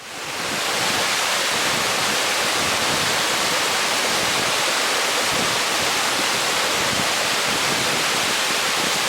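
Waterfall rushing, a steady, even wash of falling water that fades in over the first second.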